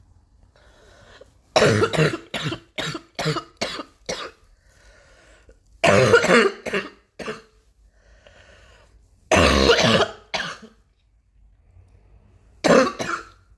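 A person coughing in four fits: first a run of six or seven quick coughs, then three shorter fits of a few coughs each, with faint breaths drawn in between. It is a persistent cough that has not cleared up.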